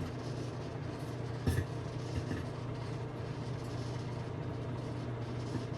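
Microwave oven running with a steady hum while bacon cooks inside a covered ceramic bacon cooker; the fat pops sharply once about a second and a half in, with a few fainter pops after.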